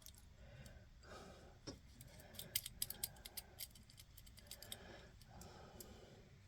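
Faint small metallic clicks and ticks from a euro lock cylinder being handled as its plug and pins are worked out after picking, the clicks bunching together about halfway through.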